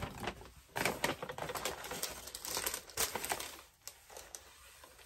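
Tissue paper and a paper shopping bag crinkling and rustling as an item is unwrapped: a dense run of quick crackles starting about a second in and lasting about three seconds, then a few lighter rustles.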